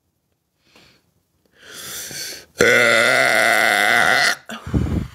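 A person's long, loud burp, held at a steady pitch for nearly two seconds, after a shorter breathy sound. A short low rumble follows near the end.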